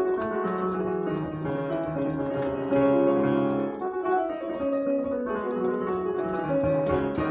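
Digital piano played solo from a score: a slow prelude of sustained chords under a melody, a little louder from about three seconds in.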